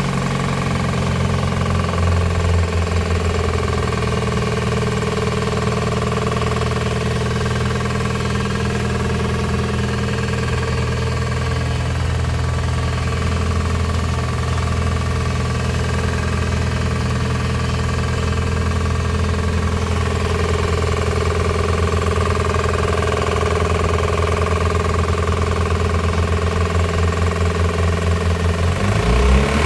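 Car engine idling steadily with a knock in it that the owner cannot identify. Near the end the revs rise.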